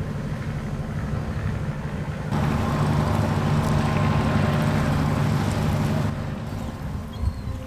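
A ship's engine running as the vessel passes close by: a loud, steady low rumble with a noisy wash, starting about two seconds in and dropping away about six seconds in.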